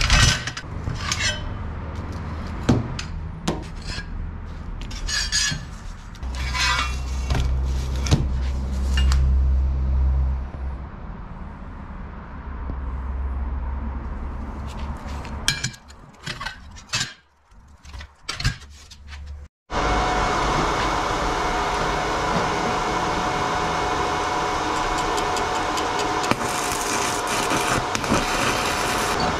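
Flat steel plates and small steel parts clinking, scraping and sliding as they are handled on cardboard. After a cut about two-thirds of the way in, a stick-welding arc crackles and hisses steadily, with a steady tone running through it, growing brighter near the end.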